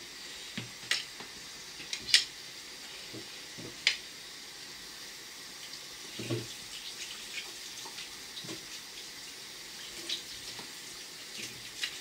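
Hands rubbing and raking steamed couscous grains in a ceramic plate, working in water between steamings so the grains absorb it evenly: a steady grainy rustle with a few sharp clicks against the plate, the loudest about two seconds in.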